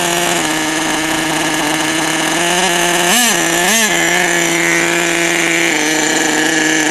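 HPI Savage 25 radio-controlled truck's small nitro engine running at a steady low speed, with two quick throttle blips a little over three seconds in.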